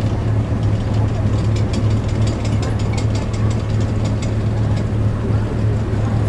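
Boat engine idling with a steady low hum. About a second and a half in, a run of quick metallic clicks starts over it and carries on for about three seconds.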